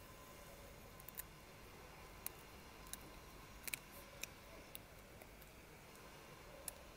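American Staffordshire Terrier puppies chewing and tugging at a thin stick: faint, irregular sharp clicks and ticks of teeth on wood, over near silence.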